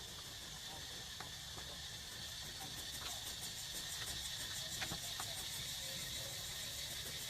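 Insects chirring steadily in a high, fast-pulsing buzz, with a few faint scattered clicks.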